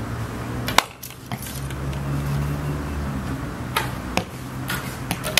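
Archery shooting: a few sharp knocks of a bowstring being released and arrows striking targets. The loudest comes about a second in and others near the end, over a low steady hum.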